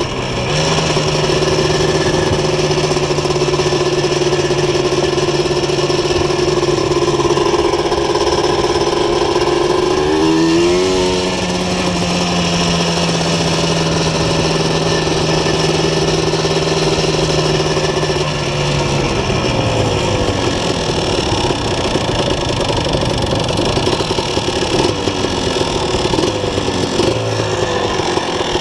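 Year-2000 Yamaha Blaster 200cc two-stroke quad engine with a full aftermarket exhaust, running at steady cruising revs. The revs change briefly about ten seconds in and fall away after about eighteen seconds as the quad slows down.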